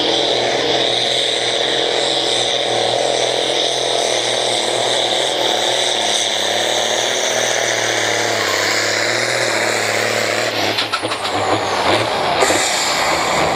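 Diesel farm tractor pulling a weight sled at full throttle, its engine running steadily and loud. About ten seconds in the engine note breaks up as the pull ends, with a high falling whine, and a hiss starts near the end.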